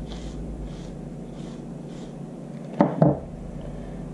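Soldering iron tip wiped on a cleaning pad to clear built-up junk: faint scratchy rubbing in a few short strokes over the first two seconds. About three seconds in come two short louder sounds in quick succession.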